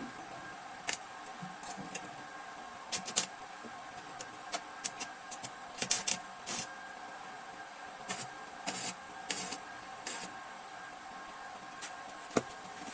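Irregular short clicks and scrapes of hand tools working on metal, over a steady hum.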